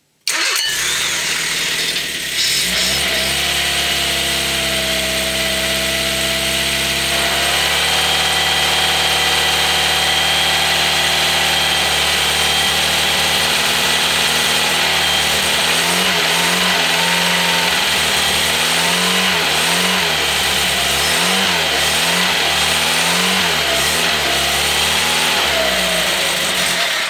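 A freshly rebuilt carburetted petrol engine with points ignition starting without choke and running on its first startups. It settles to a steady run, then from about halfway its revs rise and fall repeatedly, and it is shut off near the end before it can overheat.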